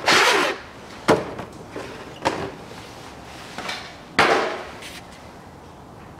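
Cardboard box and new paper air-filter element being handled as the filter is taken out of its packaging. A short scraping rustle at the start, sharp knocks about one and two seconds in, and another rustle a little after four seconds.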